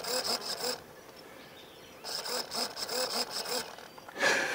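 Small motor of a robotic lava-lizard model driving its press-up display, whirring in two bouts of quick rhythmic strokes, about three or four a second, with a pause of about a second between them. A brief louder burst comes near the end.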